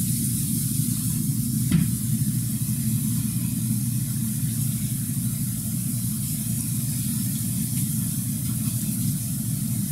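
Steady hiss over a low rumble, with one short knock about two seconds in.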